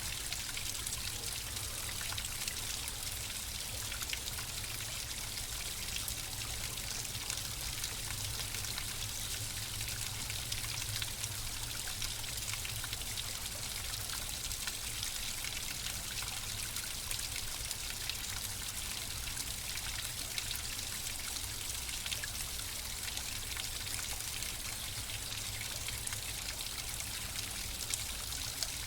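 Flowing water trickling and splashing steadily, with a dense patter of small droplets.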